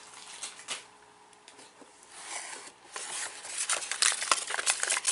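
Cardboard snack box and the wrapped snacks inside it rustling and crinkling as they are handled, quiet at first and growing into busier, louder crinkling and clicking over the last second or two.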